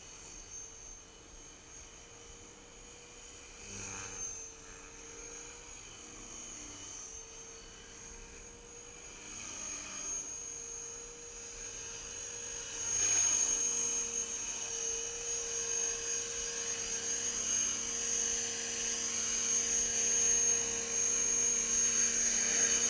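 Gaui X3 electric radio-controlled helicopter flying: a steady high motor whine with a lower rotor hum. It is faint at first and grows clearly louder about halfway through, as the helicopter comes in close and hovers low over its landing mat.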